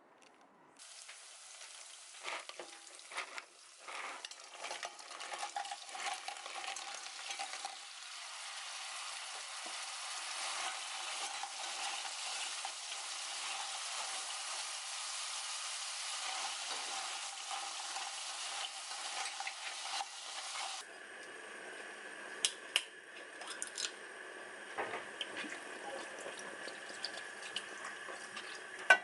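Food sizzling in a hot frying pan, with clicks and scrapes of a utensil in the first several seconds. About two-thirds of the way through, the sizzle suddenly drops to a quieter, duller crackle with scattered taps.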